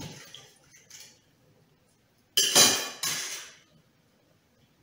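Glass bowl scraping and clinking against a stainless steel mixing bowl as chopped steamed broccoli is tipped and scraped out of it: two loud scrapes about half a second apart, a little past the middle.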